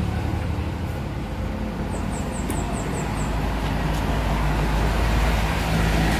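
Steady low vehicle rumble that grows a little louder near the end, with a short run of faint high chirps about two seconds in.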